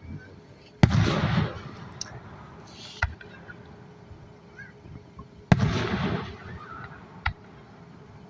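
Fireworks display: two loud aerial shell bursts about five seconds apart, each followed by about a second of rumbling echo, with a couple of smaller sharp pops between.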